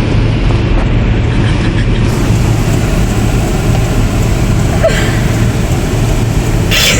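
Car engine idling heard from inside the cabin: a steady low hum, with a brief hiss just before the end.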